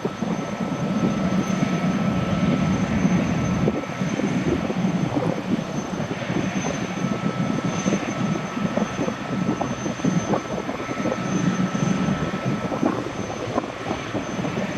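Boeing Jetfoil's gas turbine engines running: a steady high whine over a continuous rushing rumble.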